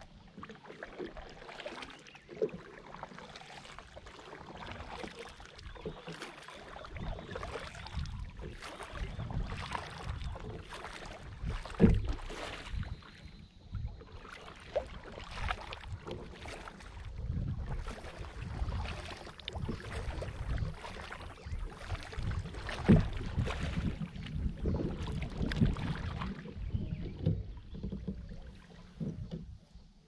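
Double-bladed kayak paddle dipping and pulling through lake water in repeated strokes, about one a second, with splashing and dripping. A low rumble comes in about a quarter of the way in, and two sharper knocks stand out, one near the middle and one about three quarters of the way in.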